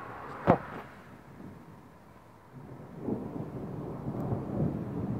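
A single sharp click about half a second in, then thunder rumbling, a low uneven rumble that builds from about three seconds in.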